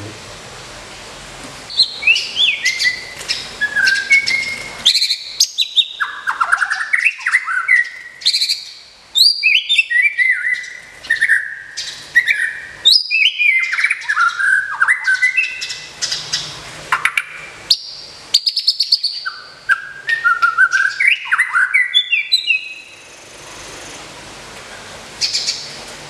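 White-rumped shama (murai batu) singing: a long, loud run of fast, varied whistled phrases with rising and falling sweeping notes, starting about two seconds in and trailing off near the end.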